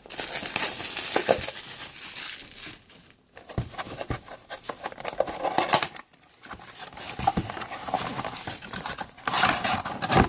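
Crinkling of the plastic wrapping and foil packs of a retail box of trading cards being opened and handled, in several stretches of rustling with short pauses about three and six seconds in.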